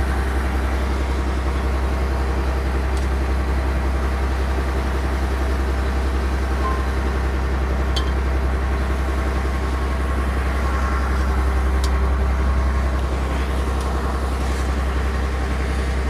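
Fishing boat's engine running with a steady low drone, joined by two light clicks about halfway through.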